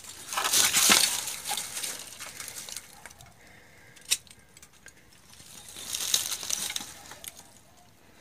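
Crunching and scraping of rubble and broken clay roof-tile fragments in two stretches, with one sharp clink a little after four seconds in.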